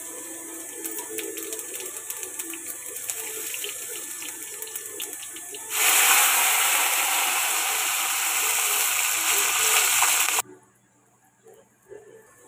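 Cumin seeds crackling and spitting in hot oil in a kadhai, then a loud, steady sizzle about six seconds in as dried red chillies go into the oil for the tadka, cutting off suddenly some four seconds later.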